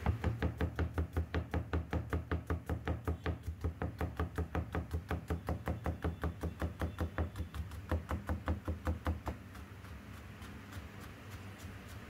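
Rapid, even knocking, about five strokes a second, which drops to faint knocks about nine seconds in.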